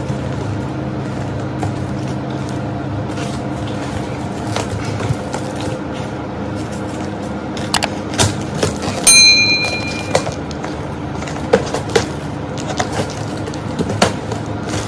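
Packing tape being cut and peeled off a cardboard box with a small cutter: scattered light scrapes and clicks. About nine seconds in, a subscribe-button animation's click and bright chime ring out, the loudest sound, over a steady low background.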